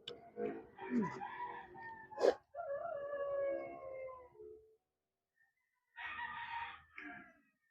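A rooster crowing: one long call starting about two and a half seconds in. A sharp click comes just before it and is the loudest sound. A short burst of noise follows near the end.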